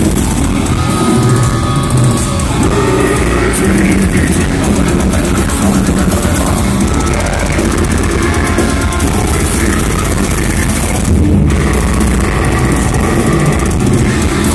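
Death metal band playing live: distorted guitars, bass, pounding drums and a vocalist, loud throughout, heard from within the crowd.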